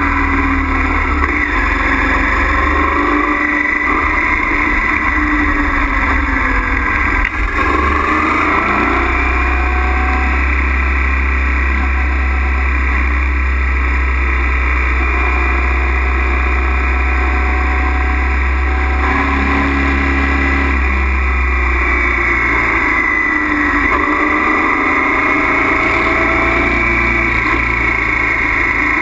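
Honda Africa Twin's V-twin engine running on the move, its pitch rising and falling with the throttle, with heavy wind rumble on the bike-mounted microphone. The sound dips briefly about seven seconds in.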